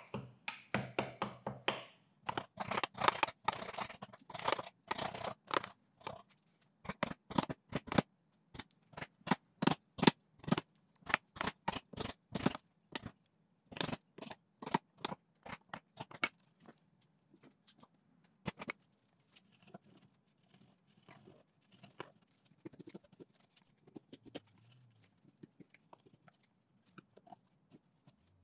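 Wood chisel pushed by hand, paring a rebate into a clamped wooden corner piece: a run of short, crisp slicing cuts, quick and fairly loud for the first half, then sparser and fainter.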